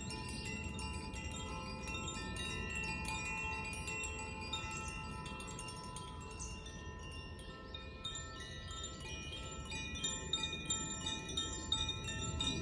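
Koshi and Zaphir tuned chimes being played, a cascade of overlapping ringing tones, with a fresh run of bright tinkling strikes in the last few seconds. A low steady rumble lies underneath.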